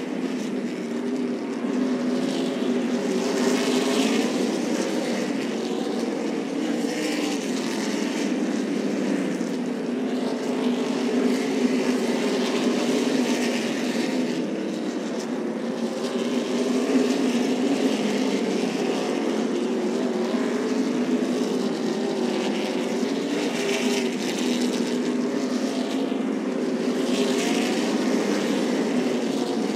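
A field of stock car V8 engines running at racing speed, the engine pitch wavering up and down as the cars go through the corners. Louder swells come every few seconds as cars pass close by.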